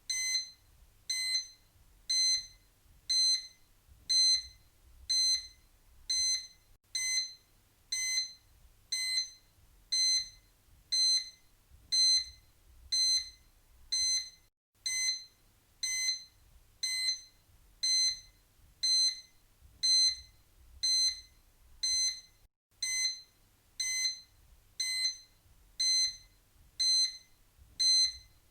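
Countdown timer beeping: a short, high electronic beep once every second, evenly spaced.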